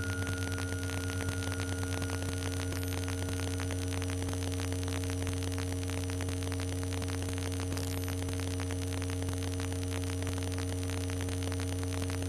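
Electromagnetic fields picked up by induction headphones and turned into sound: a steady low electrical hum with higher overtones under a dense, fast crackling static, with a thin high whistle on top.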